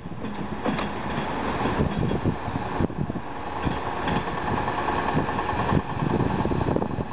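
Passenger train coaches rolling away as the train departs, with steady wheel rumble and irregular clicks and clatter from the wheels running over rail joints and points.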